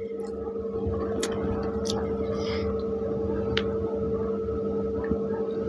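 A steady low hum holding two pitches, with a few faint sharp clicks over it.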